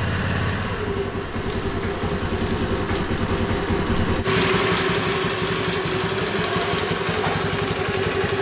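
Honda Navi's single-cylinder four-stroke engine idling steadily, not long after a cold start.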